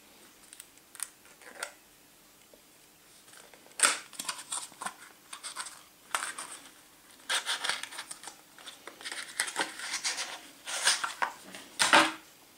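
A small paperboard box being opened by hand and the plastic dock and inner packaging taken out: scraping, rubbing and sliding of card and plastic with sharp clicks, sparse at first and busier from about four seconds in.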